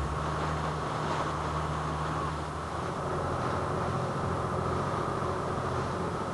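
Fishing boat under way: its engine's steady low hum, with the rush of wind and water past the hull.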